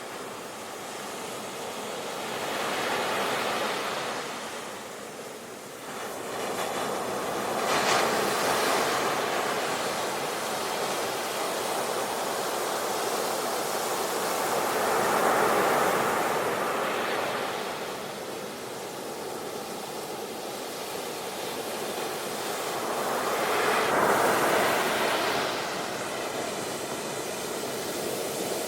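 Ocean surf: waves breaking and washing in as a steady rush that swells and fades, with four louder surges spaced several seconds apart.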